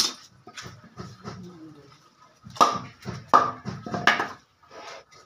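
A wooden block hammered onto the back of a machete blade to drive it through a blue marlin's tail: a sharp knock at the start, then three heavy knocks about three quarters of a second apart, each ringing briefly.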